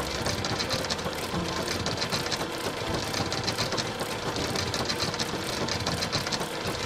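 Cartoon sound effect of a car shredder's two toothed rollers grinding up a scrap car: a steady mechanical grinding with a fast rattle.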